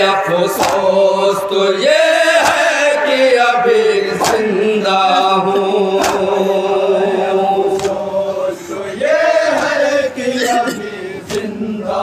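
A men's chorus recites a noha, a Shia lament, in unison through microphones, on long drawn-out notes. Sharp slaps of matam (chest-beating by hand) land every second or two.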